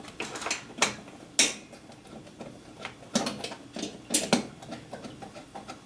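An electric meter's cover being fitted over an ION 8650 meter and secured by hand: a series of sharp clicks and knocks, with light handling rattle between them.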